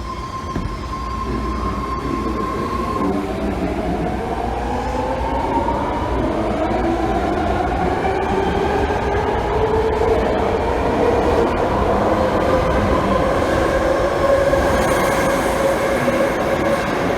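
Electric train accelerating, its motors whining in a pitch that climbs slowly and levels off near the end, over steady running noise.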